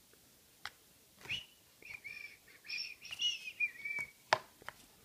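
A small bird chirping: a quick run of short high chirps lasting about two seconds, with a few sharp clicks before and after.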